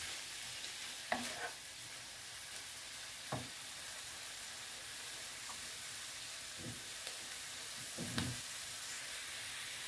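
Chopped peppers, onion, mushrooms and olives sautéing in oil in a frying pan: a steady sizzle, with a few soft knocks of a wooden spatula against the pan.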